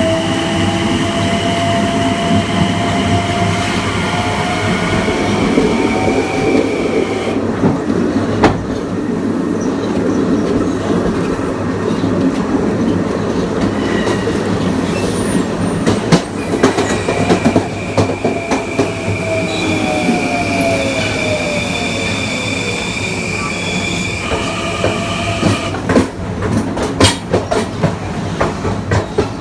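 Kawasaki M9 electric multiple unit's IGBT-VVVF inverter and AC traction motors whining in steady high tones over wheel and track noise. The whine cuts out about seven seconds in and returns about ten seconds later, with a lower motor tone sliding down shortly after. This dropout and return is typical of the propulsion switching between motoring and regenerative braking as the car crosses third-rail gaps. Sharp wheel knocks come over rail joints and switches around 8 and 16 seconds in and several times near the end.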